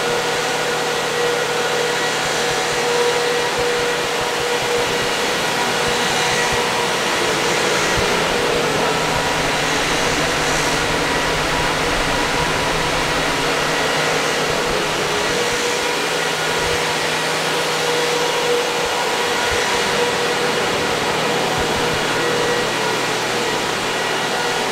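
Steady whir of the cooling fans on GPU mining rigs running, with a few steady tones running through the noise.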